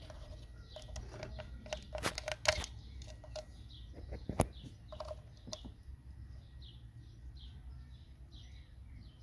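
Sharp plastic clicks and knocks as the wiring connector on a Bremi ignition coil is worked loose and unplugged, the loudest a little after two seconds and at about four and a half seconds. From about three seconds in, birds chirp rapidly and repeatedly in the background.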